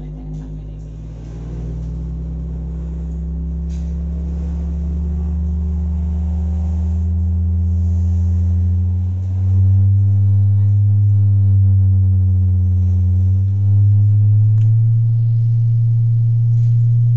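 Low, steady bass test tones played through a large PA sound system's subwoofers, each holding one pitch for a few seconds and then stepping higher and louder.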